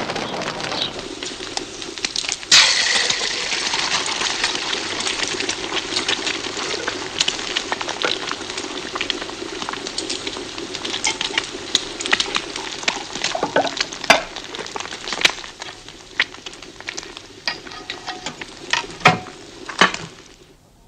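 Eggs frying in a pan on a cast-iron kitchen stove, a steady sizzle full of crackles and pops that cuts in loudly about two and a half seconds in. In the second half a few sharp knocks stand out, which fit pots and utensils. The sizzle stops abruptly just before the end.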